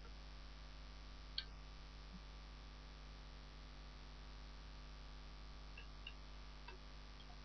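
Faint steady electrical mains hum from the recording setup, with a few soft computer-mouse clicks: one sharper click about a second and a half in, and a couple of light ones near the end.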